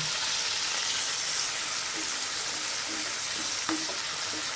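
Capsicum, tomato and onion sizzling steadily in hot oil in a frying pan, with one light knock near the end.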